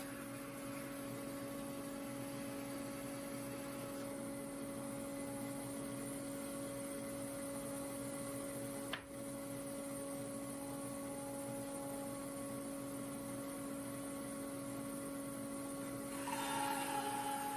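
Laguna 14BX bandsaw running with a steady hum, with a brief click about halfway. In the last second or so its carbide-tipped blade cuts into a sycamore log, adding a louder, brighter cutting sound over the hum.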